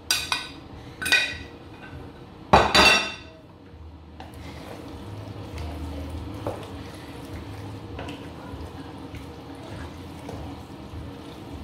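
A ceramic plate clinking against a stainless-steel cooking pot several times, the loudest knock about two and a half seconds in, as dried fish is tipped off it into the soup. After that, a wooden spoon stirring the soup in the pot: soft, steady liquid stirring with faint scrapes.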